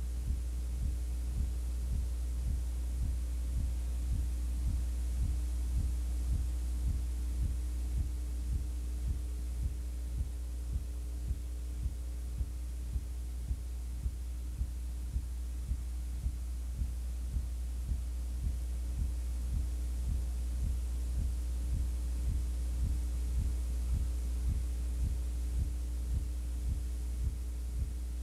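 Steady low electrical hum with a regular low pulse a little faster than once a second, like a heartbeat. No game or crowd sound is heard.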